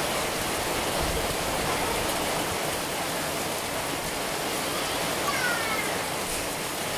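Heavy rain pouring steadily onto trees, grass and a paved road: a dense, even hiss.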